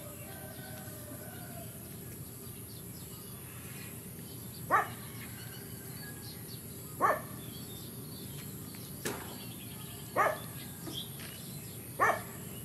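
Baby macaques giving short squeaky calls, each dropping quickly in pitch, four times about two to three seconds apart, over a steady background hiss.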